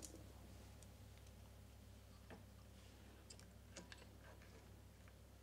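Near silence: room tone with a low hum and a few faint, light clicks about two, three and four seconds in.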